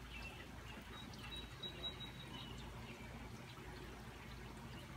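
Faint, steady rain and dripping runoff after a thunderstorm, with a few faint high chirps over it.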